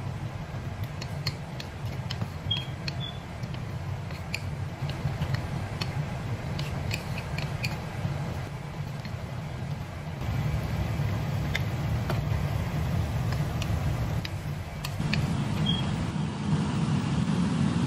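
Ground meat and peppers sizzling in a steel wok while a wooden spoon stirs and scrapes, giving scattered light clicks, over a steady low hum.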